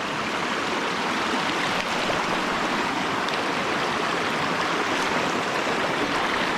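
Fast-flowing creek, running high with snowmelt, rushing in a steady, even wash.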